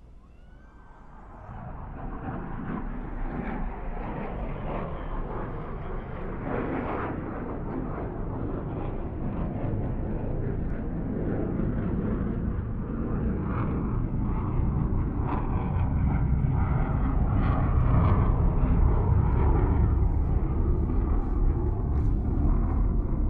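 Military fighter jet heard from about two kilometres away: its engine noise comes up sharply about a second and a half in, then keeps building with a heavy low rumble, loudest near the end.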